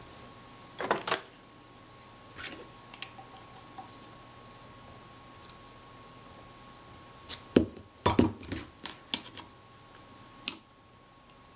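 A steel screwdriver clicking, tapping and scraping against the small metal body of a Braun Paxette camera as it is prised at the body to free the top plate. The taps are scattered at first, then come in a quick cluster of sharper metallic clicks about eight seconds in.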